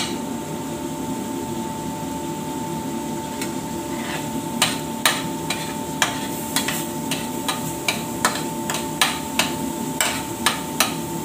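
Metal spoon scraping and clinking against a stainless steel frying pan while stirring a thick spice paste: sharp irregular clicks, few at first, then coming several a second from about four seconds in.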